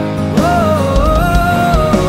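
Music: an instrumental passage of a Hindi film song, with a gliding lead melody line entering about half a second in over a sustained accompaniment.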